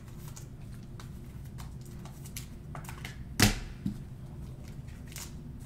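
Faint clicks and taps of trading cards being handled and sorted, with one sharper knock about three and a half seconds in and a smaller one just after.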